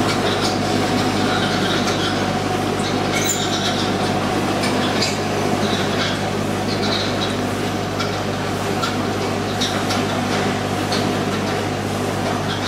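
Automatic sugar packing machinery running: a steady motor hum with scattered light clicks and rattles.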